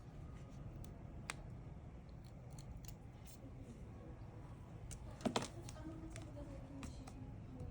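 Light clicks and taps of small repair tools on phone parts, scattered and irregular, with a sharper click about a second in and a louder double click about five seconds in, over a low steady hum.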